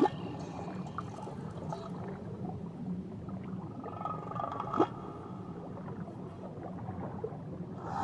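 Whale song recorded underwater: faint drawn-out calls over a steady underwater hiss, with a short rising call about five seconds in.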